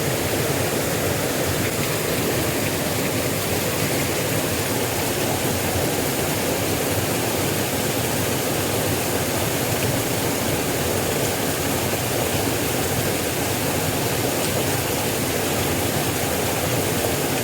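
Steady rush of a small river's flowing water.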